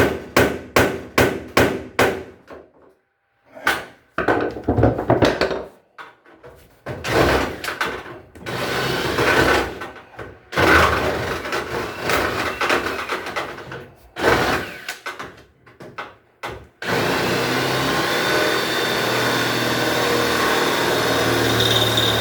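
Hammer blows on the rusted metal of a washing machine, about three a second, for the first couple of seconds. Then come irregular spurts of tool noise, and near the end a power tool runs steadily for about five seconds with a high whine.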